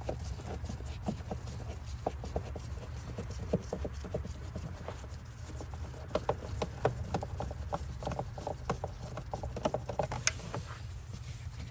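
Light, irregular clicks and taps of hand-tool work on the plastic air filter housing and its screws, coming in quick clusters in the second half, over a steady low hum.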